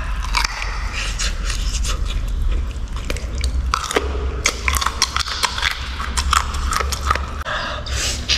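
A person chewing a mouthful of braised noodles and crunchy beef cartilage close to the microphone: a run of irregular crunches and wet smacks over a steady low hum.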